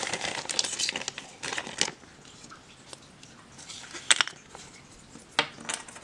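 Plastic bag of game tokens crinkling as it is handled, then a few sharp clicks about four seconds in and near the end.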